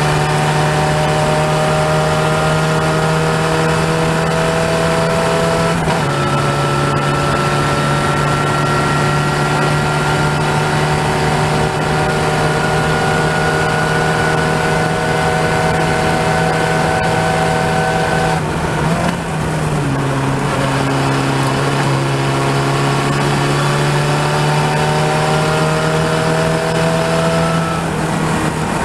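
Open-wheel race car's engine at racing speed, heard from the cockpit with wind rush. Its pitch climbs slowly through each gear and drops sharply about six seconds in. It breaks off briefly about two-thirds through, climbs again, and drops once more near the end.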